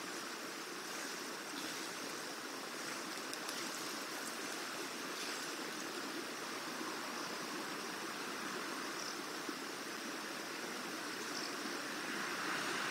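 Steady, even rushing noise from outdoors with no distinct events in it.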